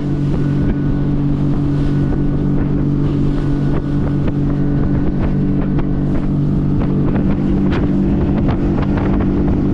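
Outboard motor of a Highfield Sport 390 rigid inflatable boat running steadily at cruising speed, with loud wind noise on the microphone.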